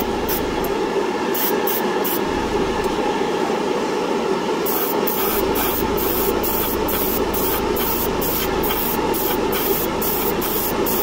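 Airbrush spraying paint in short hissing puffs, coming about two to three a second through the second half, over a steady background hum.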